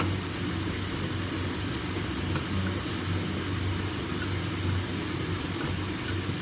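Bacon strips frying in a nonstick pan: a steady sizzle with a few faint pops, over a steady low fan hum.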